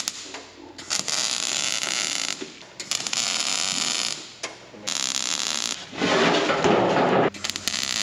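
MIG welder arc crackling and sizzling as beads are laid on a steel drum, in several runs of about a second each with short pauses between.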